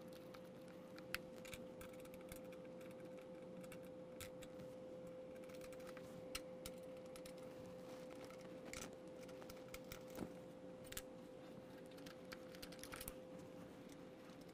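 Faint, irregular clicks of small metal nuts and washers being threaded by hand onto the grille's studs and knocking against its plastic frame, over a faint steady tone.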